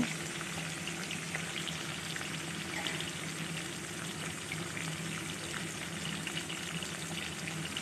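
Fish pieces frying in hot mustard oil in a kadai: a steady sizzle with scattered small crackles and pops.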